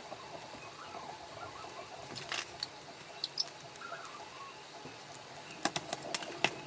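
Faint handling noises from close-up repair work laying adhesive strips on an iPad's frame: soft scratchy rustling with a few small sharp clicks, bunched near the end.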